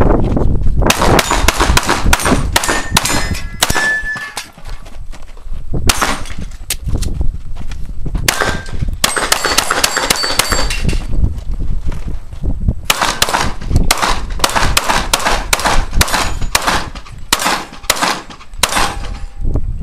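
Pistol shots fired in quick strings, each hit answered by the ringing clang of a steel plate target. Several strings follow one another with short pauses between them.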